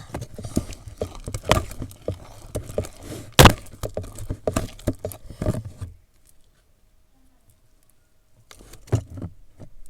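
A run of irregular clicks and knocks from things being handled, with one loud knock about three and a half seconds in, dying away about six seconds in and picking up again briefly near the end.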